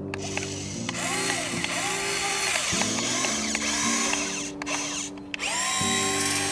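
Electric motors and upgraded servos of a Huina 1550 1/14-scale RC excavator whirring as its arm works the bucket in soil, a steady hum with short whines that rise and fall in pitch.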